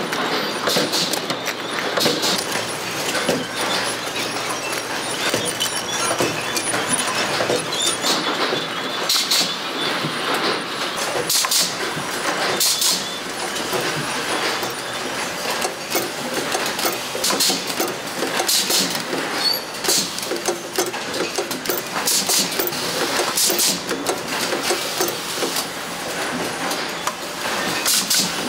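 Oil filter production-line machinery running with a continual clatter, broken by short hisses every second or two at irregular intervals.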